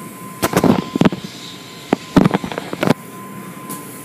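Automatic car wash tunnel machinery clattering: two bursts of loud knocks and clanks, one about half a second in and another around two seconds in, over a steady high tone.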